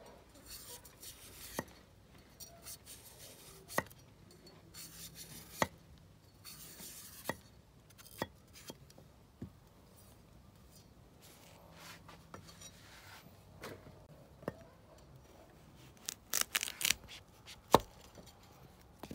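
A cleaver slicing strips off a peeled carrot on a wooden chopping block. It makes sharp, separate knocks every second or two, with soft scraping as the blade runs down the carrot, and a quick run of cuts near the end.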